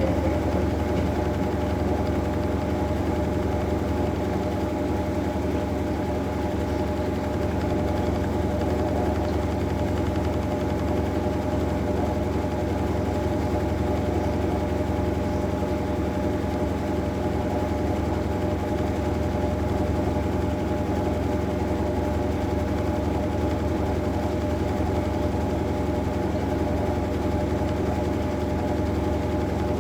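Maytag Bravos top-load washing machine running with a steady motor hum and several constant tones, even in level throughout.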